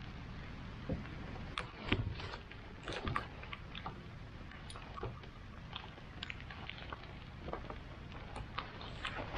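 Steady rain falling on the water and the kayak, with scattered rustles and clicks from a waterproof rain jacket being pulled on over the head.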